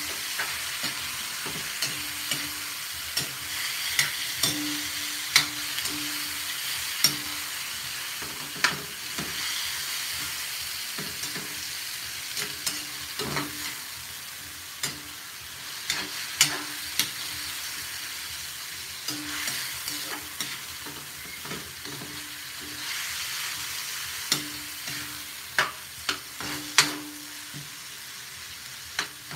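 Meat, potatoes and peppers sizzling as they fry in a metal wok, stirred with a metal spoon that clinks and scrapes against the wok about every second.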